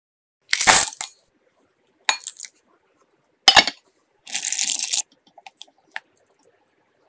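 Kitchen clatter: three sharp clinks and rattles of hard pieces against bowls, the loudest about half a second in. About four seconds in comes a short hiss, then a few faint ticks.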